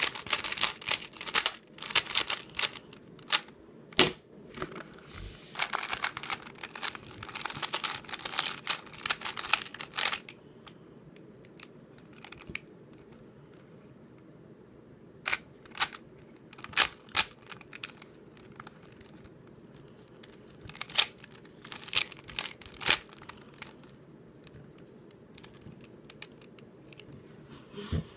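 YJ Sulong 3x3 speed cube being turned fast by hand: spurts of quick plastic clicks and clacks as its layers snap round. A lull of several seconds about a third of the way in, then the turning resumes in shorter spurts.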